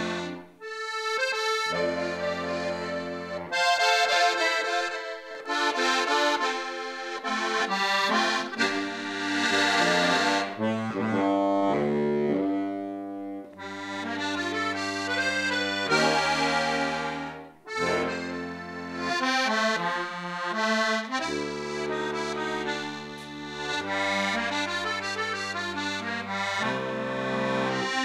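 Diatonic button accordion playing a lively folk tune, with the melody over changing bass notes. The playing breaks off briefly about a second in and again about two-thirds of the way through.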